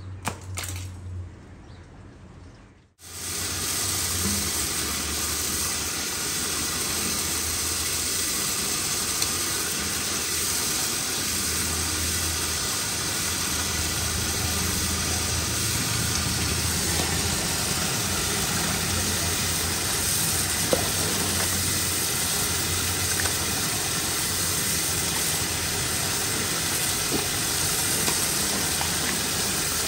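A steady stream of water gushing from a hose onto a tiled floor while a whole plucked chicken is rinsed under it by hand, starting suddenly about three seconds in.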